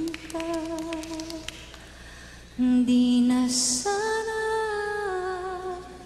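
A woman's voice vocalizing without words in a live performance: a series of long held notes that step and slide between pitches, with little accompaniment under it. The loudest is a low sustained note a little after halfway, followed by a higher note that drops in pitch.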